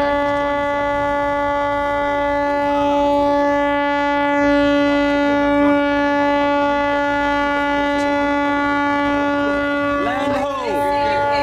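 Ferry's horn sounding one long, steady blast at a single pitch. Voices cut in briefly near the end.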